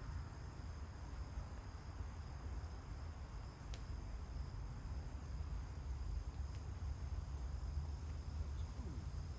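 Crickets trilling steadily, a continuous high-pitched chorus, over a low steady rumble.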